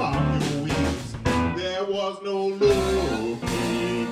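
Live electric blues band playing: guitar, bass, keys and drums. About halfway the bass and drums drop out for a moment, leaving only held guitar and keyboard notes, then the full band comes back in.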